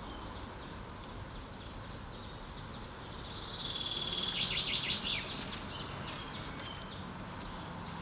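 Small birds singing and chirping over a steady background hiss, with a louder run of rapid, repeated chirps about four seconds in.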